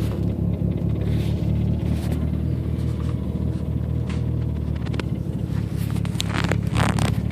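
Car engine idling, heard from inside the cabin: a steady low drone, with a few light clicks and a brief rustle near the end.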